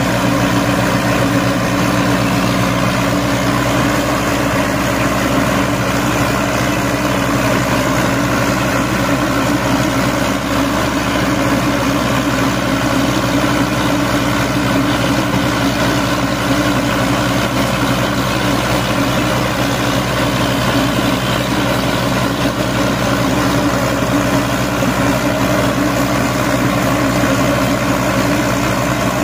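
The diesel engines of a Massey Ferguson 240 and a New Holland Ghazi tractor running hard and steady under full load, chained back to back in a tug-of-war. The engine note stays at an even pitch throughout.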